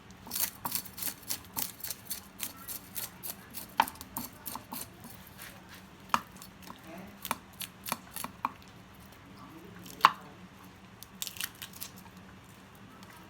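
A knife cutting a long-spine seabream: a run of quick, sharp strokes, about three a second for the first few seconds, then scattered single knocks, the loudest about ten seconds in.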